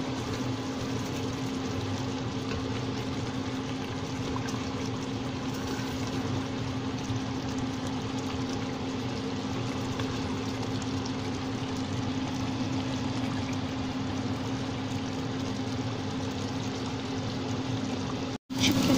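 Chicken adobo simmering in a stainless steel pot on an induction hob: a steady bubbling hiss with a steady low hum underneath.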